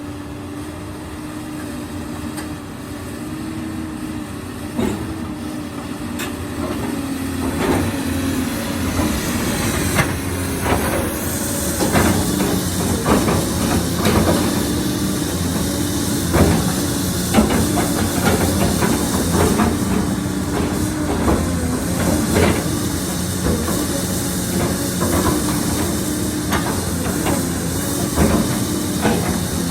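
Komatsu PC220-7 hydraulic excavator running: a steady diesel engine note with a hiss over it, and repeated knocks and clanks from the machine working. The sound grows louder over the first ten seconds or so.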